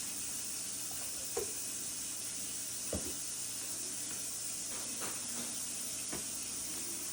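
A steady hiss that starts suddenly, with a few light knocks scattered through it.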